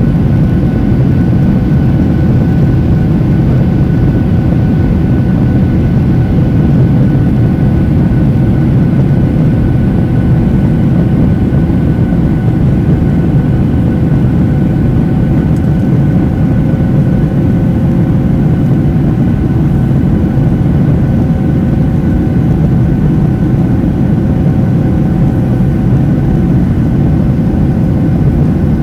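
Steady cabin noise of a Boeing 737-800 climbing after takeoff, heard inside the cabin: a deep, even rumble of engine and airflow noise with a few faint steady hums from its CFM56-7B turbofans, unchanging throughout.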